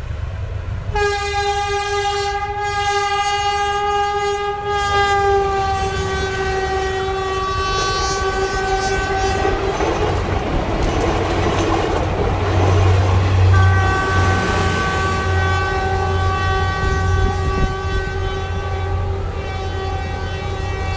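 Diesel locomotive horn sounding a long blast as the train approaches, its pitch dropping slightly as it comes by. Then the engine rumble and wheel clatter of the train passing close. The horn sounds again from about the middle on and holds to the end.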